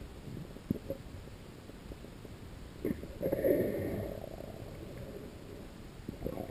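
Muffled underwater noise picked up by a submerged camera: a low rumble with a few sharp knocks, and a louder gurgling swell about three seconds in.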